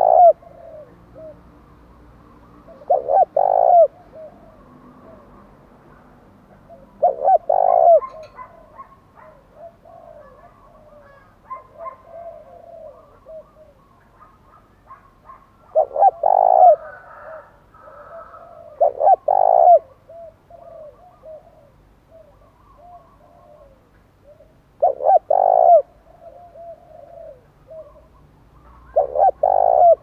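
Spotted dove singing its challenge coo close up: a loud coo phrase every few seconds, seven in all, each trailed by a run of softer coos.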